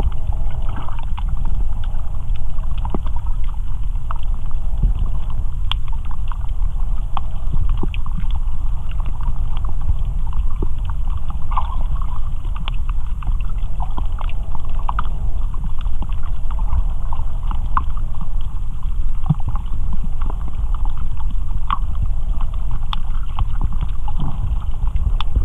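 Muffled underwater sound picked up by a GoPro inside its waterproof housing: a steady low rumble of moving water, with scattered small clicks.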